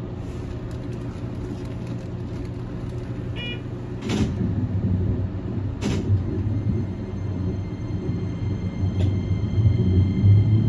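Keikyu 2100-series electric train standing at a platform, heard from the front cab with a steady low hum from its equipment. A short chime sounds about three seconds in, then two sharp hisses of air about two seconds apart as the doors close. The train starts to pull away near the end.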